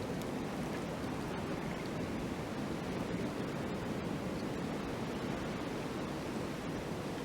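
Wind blowing steadily in a winter landscape, an even rushing noise that does not rise, fall or break in gusts.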